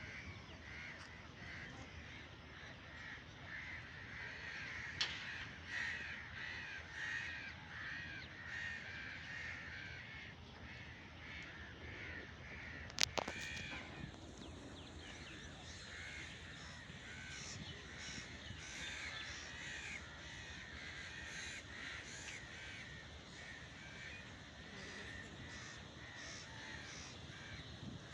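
A flock of birds calling continuously, many short overlapping calls, with one sharp click about halfway through.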